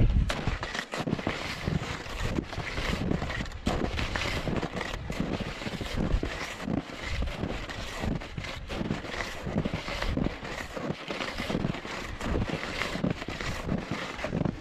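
Hunting skis crunching and swishing over snow in a regular stride rhythm, with wind on the microphone.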